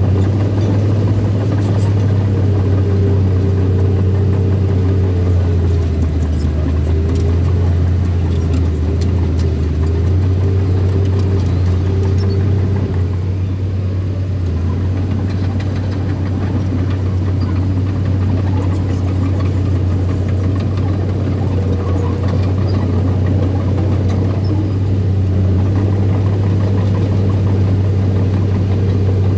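Small bulldozer's diesel engine running steadily, with a deeper note added for a few seconds around the middle.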